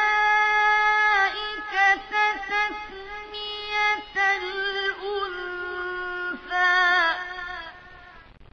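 A single high, young voice chanting Quran recitation in long held, ornamented notes with brief pauses for breath, stopping near the end.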